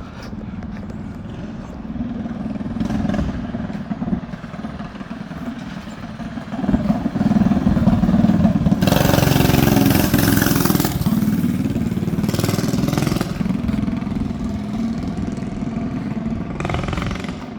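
A motor vehicle's engine passing close by: a low rumble that builds about seven seconds in and stays loud for several seconds, with a loud hiss in the middle of it.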